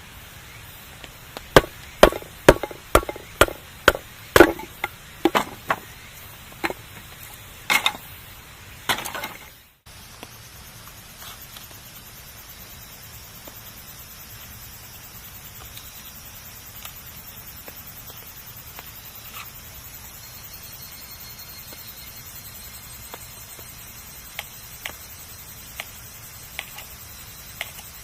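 Wood campfire crackling: a quick run of sharp, loud pops and snaps, two or three a second, for about the first third, then after a brief drop-out a steady soft hiss with only occasional faint crackles.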